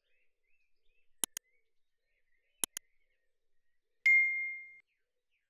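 Subscribe-button animation sound effects: two quick double mouse clicks about a second and a half apart, then a single bell-like notification ding about four seconds in that rings out for most of a second.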